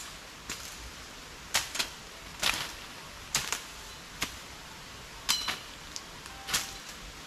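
Machetes chopping into brush and small saplings: sharp, irregular strikes about one or two a second, some in quick pairs, one near the middle with a brief metallic ring.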